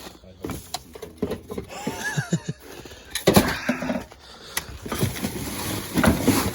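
Knocks, clatter and scraping of car body parts being handled and moved, with louder stretches of scraping about three seconds in and near the end.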